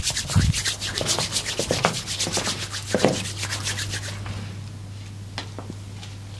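Hands rubbing briskly, about eight quick strokes a second, easing off and stopping about four seconds in.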